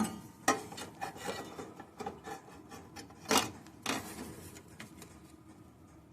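A sheet-metal patch panel scraping and rubbing against the car body as it is handled and test-fitted, with four sharp metallic knocks, two near the start and two about three and a half seconds in.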